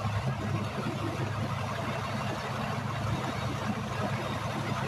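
Vehicle engine idling steadily, a continuous low rumble.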